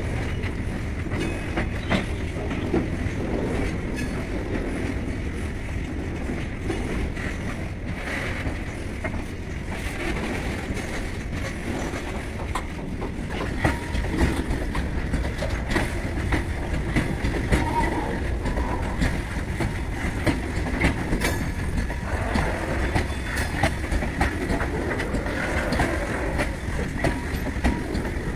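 Freight train of hopper wagons rolling past close by, a steady low rumble with the wheels clicking over the rail joints. The clicks grow sharper and more frequent from about halfway through.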